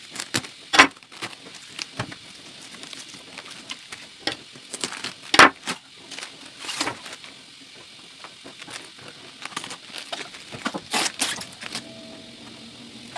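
Knife crunching into the core of a raw white cabbage and its crisp leaves cracking as they are pried loose: a string of sharp snaps, the loudest about a second in and midway, with a cluster near the end.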